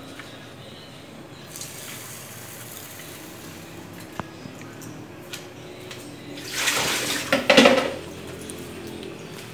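Liquid splashing in a large pot of soup broth as pieces of yuca go in by hand. The loudest part is a burst of splashing and pouring lasting about a second and a half, near the end.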